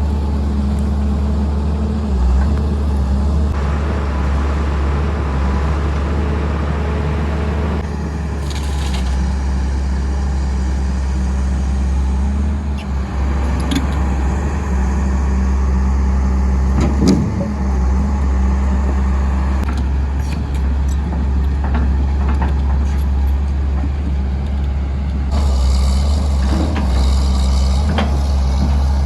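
John Deere 690D LC excavator's diesel engine running steadily under working load as it handles logs. A few knocks come around the middle, and there is a stretch of hissing noise near the end.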